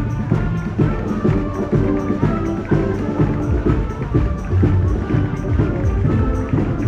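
Music with a steady beat and several instruments playing.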